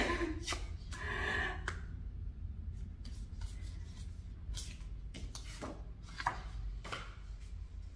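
Photocards and cardboard album pieces being handled and shuffled: a series of short scrapes and light clicks of card sliding against card.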